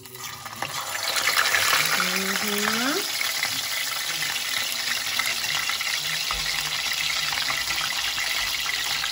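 Whole round scad (galunggong) frying in hot canola oil in a stainless steel pan. The sizzle swells as the fish goes in, then runs steadily.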